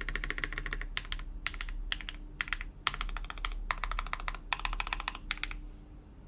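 Typing on a KBDfans Tiger80 Lite mechanical keyboard with lubed Gateron Smoothies linear switches, PBT keycaps and an FR4 plate. The keystrokes come in short rapid bursts, like words with pauses between them, and stop near the end.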